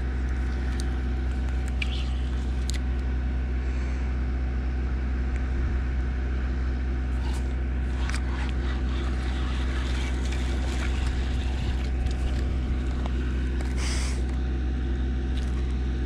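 A steady low mechanical drone from a running engine or motor, unchanging throughout, with a few faint clicks and handling rustles over it.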